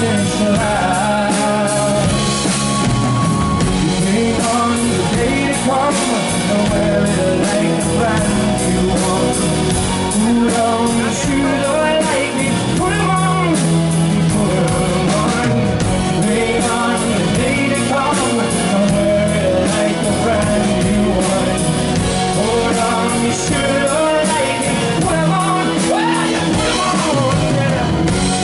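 Live rock band playing: a male lead singer singing over drums and electric bass guitar.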